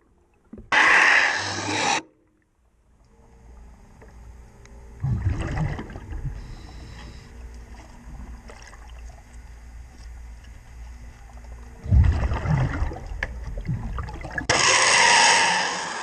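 Underwater sound of a scuba diver cleaning a boat's sea chest: bursts of regulator exhaust bubbles about a second in and again near the end, and two heavy low rumbling scrapes against the hull in between, over a steady low hum.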